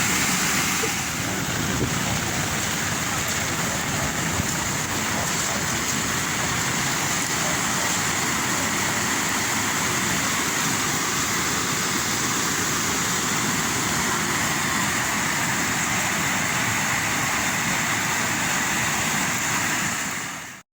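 Steady rushing noise of hurricane rain and wind, cutting off suddenly at the end.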